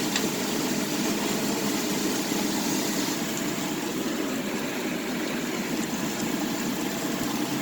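Beans and mixed vegetables cooking in a pan for fried rice, under a steady, even hum and hiss.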